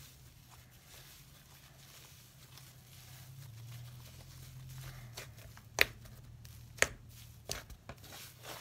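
Homemade cloud slime being kneaded and squished by hand: soft, quiet squishing, then from about six seconds in a series of sharp pops as air pockets in the slime burst, the two loudest about a second apart.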